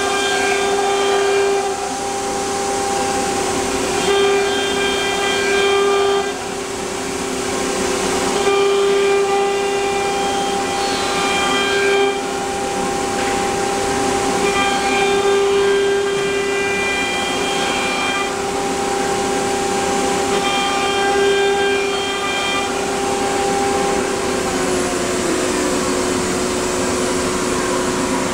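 Air-cooled spindle of an AKM1325C CNC router running with a steady high whine, a harsher, brighter cutting sound coming in for about two seconds roughly every four seconds. About four seconds before the end the whine's pitch drops slightly.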